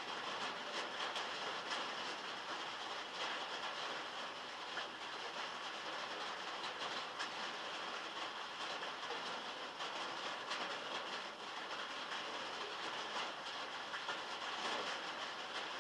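Heavy rain falling on metal, heard from inside a log shed: a steady hiss with dense, irregular ticks of individual drops striking the metal.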